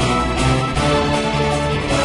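Instrumental background music: steady sustained notes that change pitch every half second or so.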